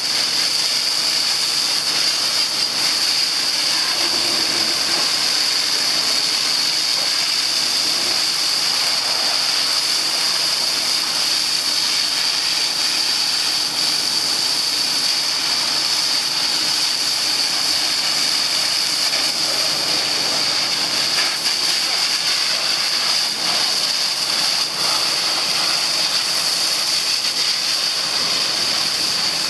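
Hose jet of water spraying hard against a tractor's rear hitch, axle and tyres: a steady hiss with splashing.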